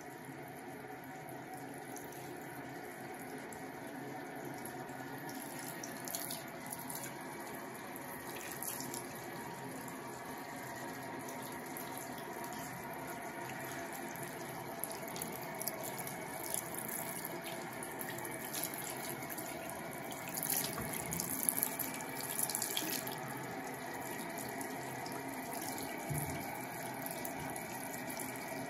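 Bathroom sink tap running steadily, the stream falling onto hands and a kitten's wet fur in the basin, with a few brief splashes, most of them about two-thirds of the way through.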